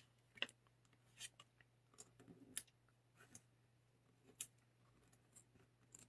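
Faint, scattered rustles and light clicks of cardstock pieces being handled and pressed down onto a card front, over a steady low hum.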